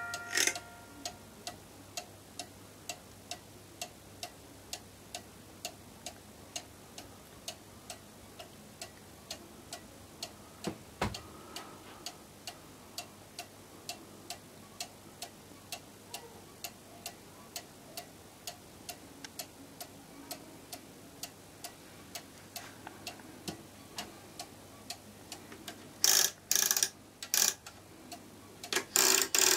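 Mechanical cuckoo clock ticking steadily, about two ticks a second, as the last notes of its music box die away at the very start. One knock about eleven seconds in, and several loud noisy bursts near the end.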